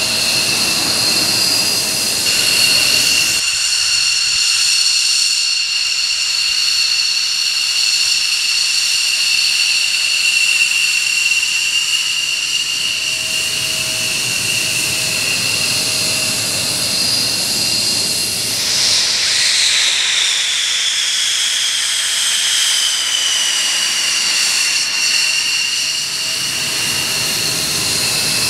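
F-16 fighter jets' turbofan engines whining at taxi power, with several steady shrill tones over a hiss. About two-thirds of the way in, a whine sweeps down in pitch as a jet goes past.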